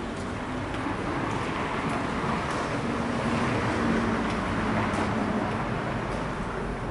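Street traffic: a motor vehicle going by, its engine and tyre noise growing to a peak about midway and then easing off.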